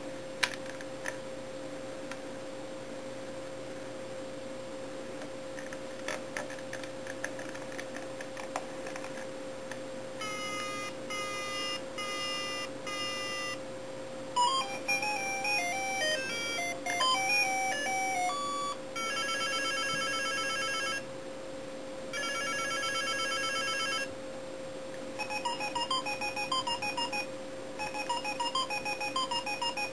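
Keys of a dollar-store toy BlackBerry clicking, then from about ten seconds in the toy plays electronic sounds from its small speaker. First comes a row of short repeated beeps, then a simple beeping melody, then a warbling ringtone twice, and more melody beeps near the end.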